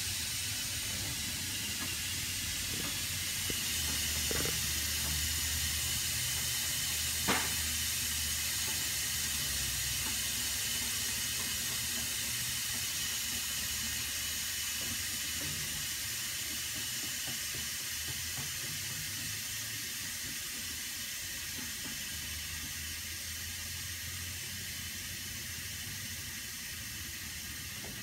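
Hydraulic car lift lowering a car, its release valve giving a steady hiss that eases slightly as the car comes down. One sharp click about seven seconds in.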